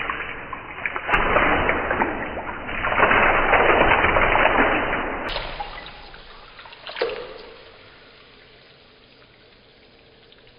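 Coloured water gushing and splashing out of a squeezed water balloon into a plastic tub, loudest in the first five seconds, then dying down. A single sharp snap about seven seconds in, then it is quiet.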